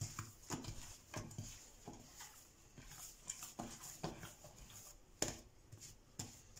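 Hands punching down risen bread dough in an earthenware bowl: a string of soft, irregular slaps and thuds as the air is pressed out of the dough and it is folded over.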